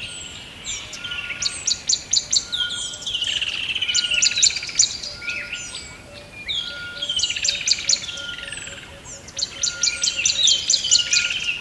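Several songbirds singing together: rapid bursts of high chirps repeating every few seconds, over slurred trills and a recurring short whistle.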